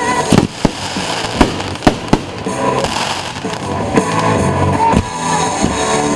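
Fireworks going off in a string of sharp bangs at irregular intervals, over music playing throughout.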